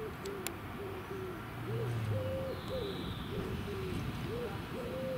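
Emergency-vehicle siren, a two-note horn alternating between a lower and a higher tone about twice a second, with short glides between the notes.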